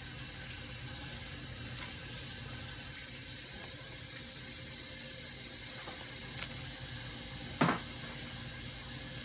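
Steady hiss with a low hum underneath, and one sharp knock about three-quarters of the way in, a knife striking a ceramic plate while sausage is cut.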